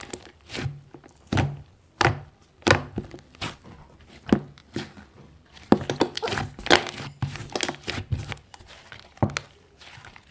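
Slime being squeezed and pressed by hand: irregular sticky pops, clicks and crackles, one or two a second.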